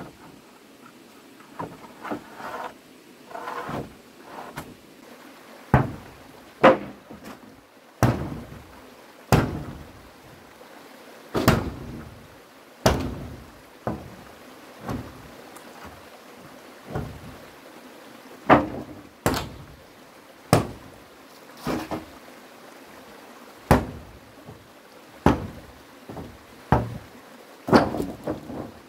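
Repeated hand-tool blows of house-building work: about twenty sharp knocks, each with a short ring, at uneven gaps of one to two seconds.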